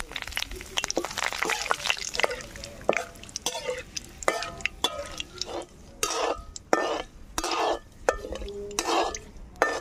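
Curry leaves sizzling and spattering in hot oil in a metal wok for the first few seconds, then a perforated steel skimmer stirring them, scraping and knocking against the wok in repeated strokes, one or two a second.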